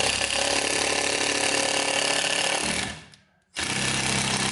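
National (Panasonic) EZ7206 cordless impact driver driving a screw into wood, running under load. It stops for about half a second around three seconds in, then starts again on the screw.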